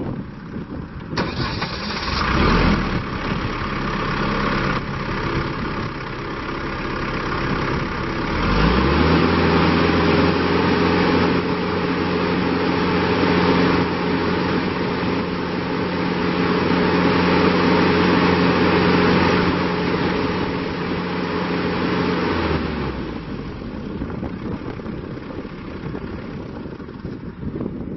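New Holland Boomer 41 compact tractor's diesel engine running. About nine seconds in it rises quickly to a higher steady speed and holds there, then the engine note drops away a little after twenty seconds.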